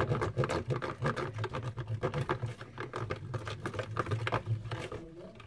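A spoon stirring glitter into glue in a plastic tub: a quick, irregular run of clicks and scrapes of the spoon against the plastic.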